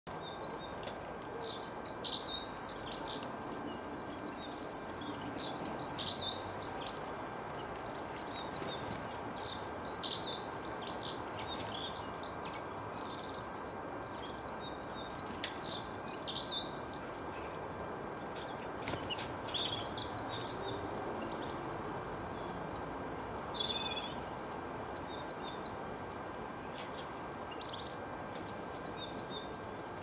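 Small garden songbirds singing and chirping in bursts of quick, high twittering with short pauses, thinning out after about twenty-four seconds, over a steady background hiss.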